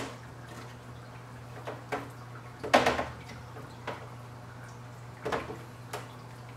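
Short plastic knocks and clicks as a power cord and plug are handled at the plastic reservoir of an aeroponic cloning machine, about half a dozen in all, the loudest about three seconds in, over a steady low hum.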